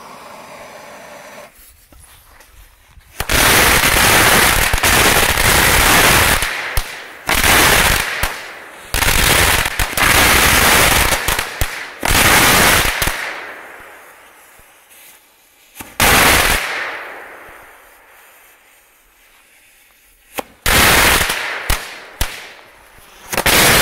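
A lit firework fuse hissing, then from about three seconds in a string of large head-bomb firecrackers going off in clusters of loud, rapid bangs, with pauses between clusters and a few last bangs near the end.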